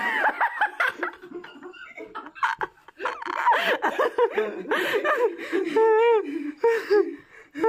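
A young man laughing: high-pitched giggling and chuckling.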